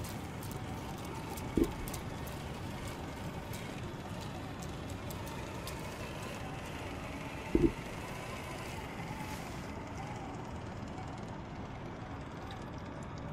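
Electric RC crawler modelled on a Mercedes G-Class driving through mud and shallow water, its motor giving a faint steady whine over a constant hiss. Two short low thumps stand out, one about a second and a half in and one about halfway through.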